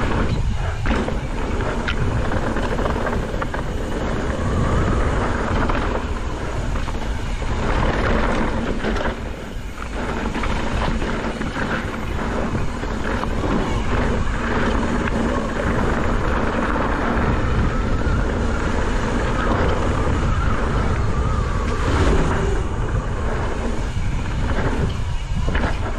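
Wind rushing over the action-camera microphone and knobby tyres on dirt as a Specialized Status 140 mountain bike descends a downhill trail at speed, with frequent clicks and knocks from the bike rattling over rough ground.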